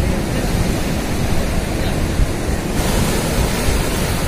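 Sea surf washing and breaking against shoreline rocks, a steady rushing wash, with wind noise on the microphone.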